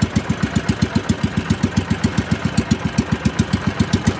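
Motorized banca's boat engine running steadily, with evenly spaced low beats at about eight a second.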